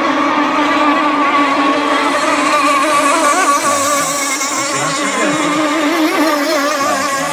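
Engines of several radio-controlled racing hydroplanes running flat out together, a steady high whine of overlapping pitches that waver up and down as the boats race and turn.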